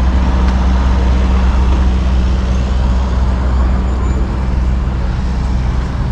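A car engine idling close by with a steady low rumble.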